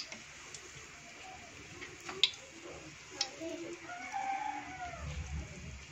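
A rooster crows in the background about four seconds in, one arching call lasting about a second. Before it come a few sharp clicks of metal tongs against the wok and wire strainer.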